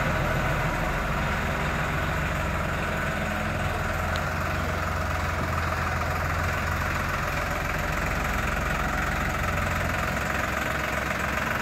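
New Holland 3630 TX tractor's three-cylinder diesel engine running at a steady idle as the tractor rolls slowly forward.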